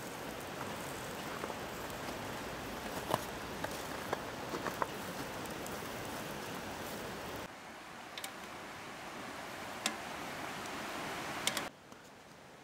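Skewered lamb liver grilling over glowing charcoal: a steady sizzling hiss with scattered sharp crackles and pops from the embers. The hiss drops in level about seven and a half seconds in and again near the end.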